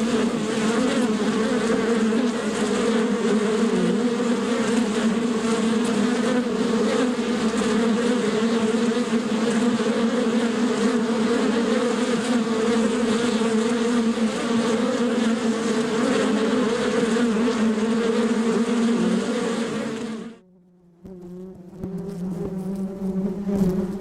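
Honey bees buzzing steadily with a constant low hum. About twenty seconds in the buzz cuts out suddenly for about a second, then comes back fainter and grows louder again.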